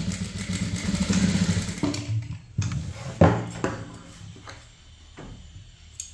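Sewing machine running while stitching a blouse dart, stopping about two seconds in, followed by a few sharp clicks and taps.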